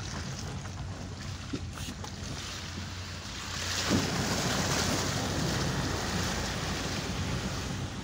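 Dacia Sandero Stepway driving through a shallow river crossing: the engine runs low and steady, then from about three and a half seconds in water rushes and sprays against the side of the car, with a splash near four seconds.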